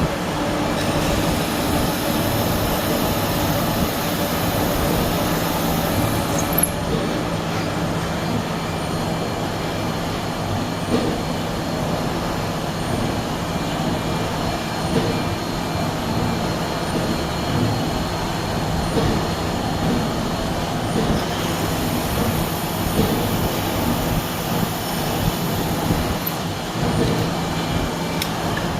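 Milling machine running steadily with a constant low hum and a dense mechanical rattle. A high-pitched hiss comes in twice for about five seconds each time.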